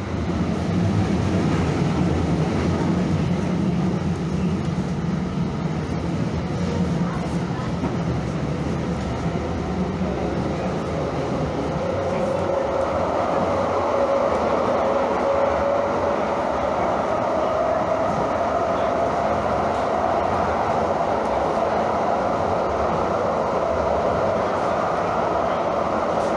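Calgary CTrain light rail train running along the track with a steady rumble; about halfway through a whine comes in and slowly rises in pitch.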